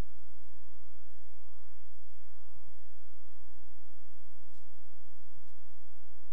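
Steady electrical mains hum with a buzzy stack of overtones, unchanging throughout, on the soundtrack of a VHS tape recording. Two faint ticks come near the end.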